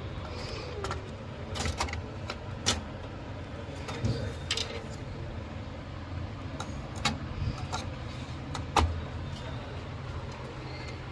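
Irregular sharp clicks and light knocks, the loudest about a third of the way in and again near the end, over a steady low hum.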